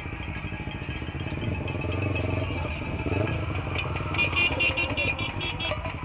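Motorcycle engine running at low speed in slow, crowded traffic. In the last two seconds a horn honks in a quick string of short beeps, about three a second.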